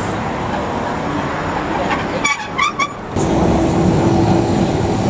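Running noise of a heritage tram with street noise around it. About two seconds in come three quick high-pitched signal notes, then louder steady running noise with a faint hum.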